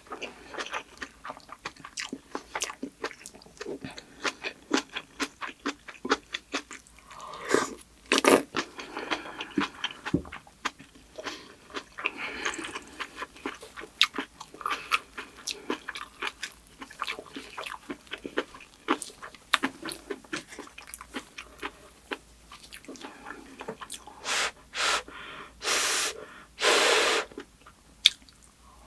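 Close-miked chewing of rice and kimchi: rapid wet mouth clicks and crunches, with a few louder, longer bursts of sound near the end.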